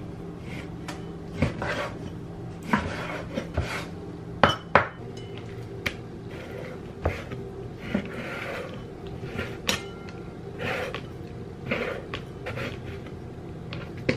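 A Chinese cleaver cutting beef brisket on a wooden cutting board: the blade knocks on the board at irregular intervals, a second or so apart, with some softer scraping between strokes, over a steady low hum.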